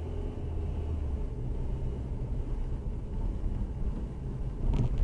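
Car cabin noise picked up by a dash camera while driving at low speed: a steady low engine and road rumble, with one short sharp knock near the end.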